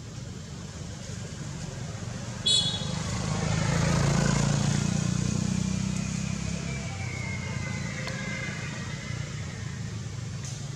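A road vehicle passes by, growing louder to a peak about four seconds in and then fading, its pitch falling as it goes. A short, sharp high-pitched sound comes just before the peak, about two and a half seconds in.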